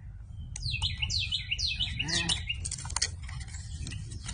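A songbird singing a quick run of about seven down-slurred whistled notes. About three seconds in comes a sharp crackle from the cardboard box top being pulled open.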